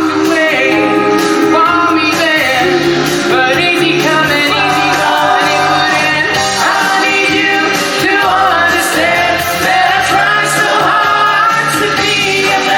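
A song from a musical-theatre stage show, sung over band backing.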